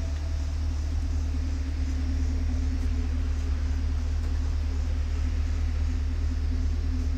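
Car running: a steady low rumble with a steady droning hum above it.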